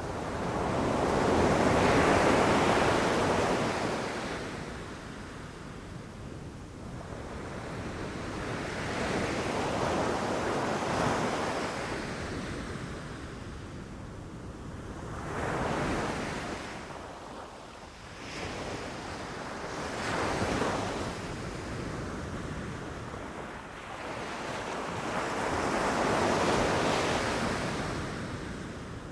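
Ocean surf breaking on a beach: five swells of wave noise rising and falling, the loudest near the start.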